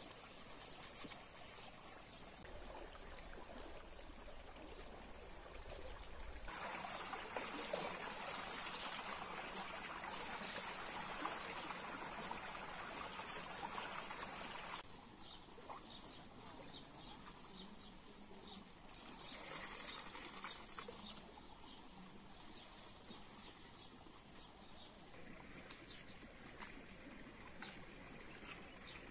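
Water running and trickling through a shallow irrigation channel, a steady rush that grows louder for a stretch in the middle and then drops back.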